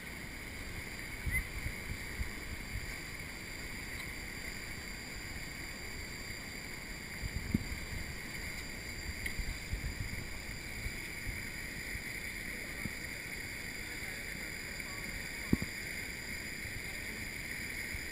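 Steady rush of a swollen, muddy stream pouring through and past a concrete culvert. Wind buffets the microphone in low thumps, and there is one sharp knock late on.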